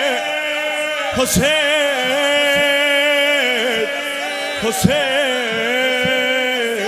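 Male eulogist's voice singing a long drawn-out note of a Persian Shia lament (noha), the pitch wavering. It breaks into a quick swooping turn about a second in and again near five seconds.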